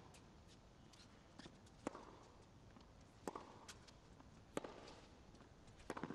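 Faint tennis rally: sharp knocks of the ball off the racket strings and the court, about one every second to second and a half.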